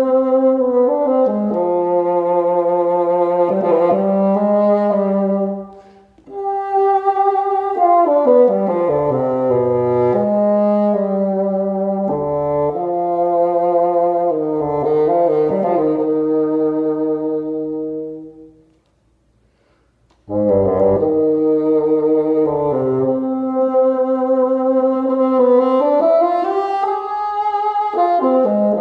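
Solo bassoon playing a slow, expressive melody of held notes with vibrato, dipping into low notes. The player breaks briefly about six seconds in and stops for about two seconds before resuming.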